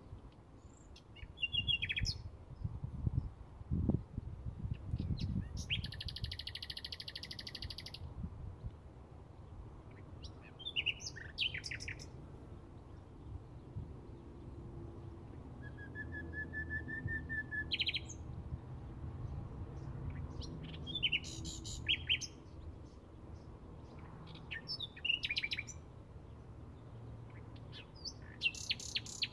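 Bluethroat singing: short, varied song phrases every few seconds, one a dense buzzy trill and another a quick run of repeated ringing notes, over a low background rumble.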